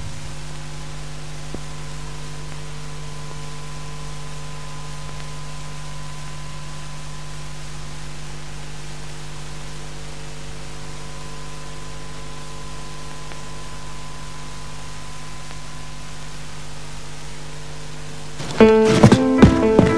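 Film soundtrack drone: a steady hum with several held tones that does not change. Near the end, loud struck musical notes break in and repeat in quick succession.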